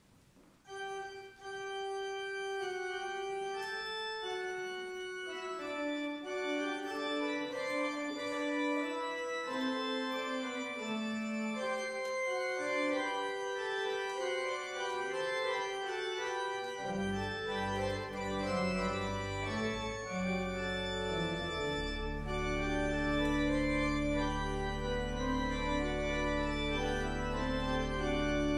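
Church organ playing the postlude that follows the blessing: held, overlapping notes begin about a second in, deep pedal bass comes in past the middle, and low sustained bass notes carry on under the chords near the end.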